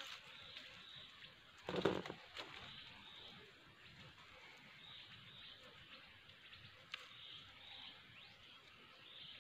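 Dry leaf litter rustling briefly about two seconds in as a hand sets a rat trap on the forest floor, with one sharp click near seven seconds. Faint, high bird chirps repeat throughout.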